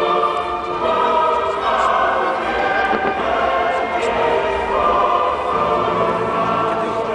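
Choral music: a choir singing sustained chords, the soundtrack of a fireworks show.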